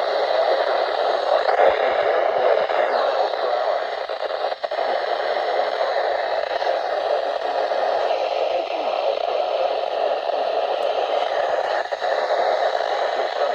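Steady radio static and hiss from a weather radio receiver, with no clear broadcast voice coming through.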